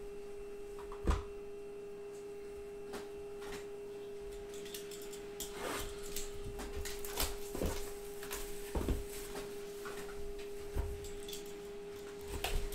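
Handling noise from a sealed cardboard trading-card box being picked up and turned over on a tabletop mat: scattered knocks and rustles, the sharpest about a second in. A steady hum-like tone sounds beneath it throughout.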